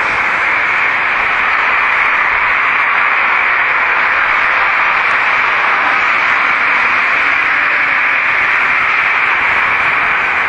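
Steady, loud hiss like static, with no change or pattern to it.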